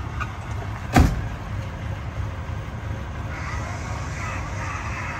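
A single sharp clunk about a second in as the 1952 Ford Crestline Sunliner's convertible top is unlatched from the windshield header, then from about three seconds in a steady whir as the top mechanism starts to lower it, over the low hum of the idling engine.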